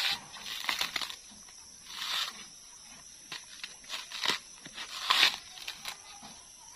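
Fibrous coconut husk being torn off the nut by hand, a series of irregular ripping, crunching pulls, the loudest a little past five seconds in.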